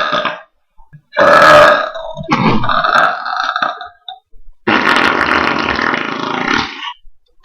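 A man burping loudly, several separate burps in a row, the last one drawn out for about two seconds.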